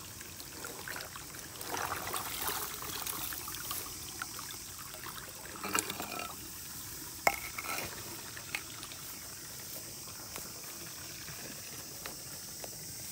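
Dry grass rustling under hands, with a few sharp clicks about six and seven seconds in, over a faint trickle of water from a rice-paddy underdrain being opened to drain the field for mid-season drying.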